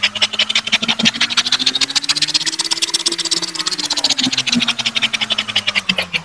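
Plastic spirograph wheel rolling fast around the inside of a large toothed ring, its gear teeth clicking in a rapid rattle with the pen scraping on paper. The clicks come faster toward the middle and slow again near the end, with a whirring hum that rises and then falls in pitch.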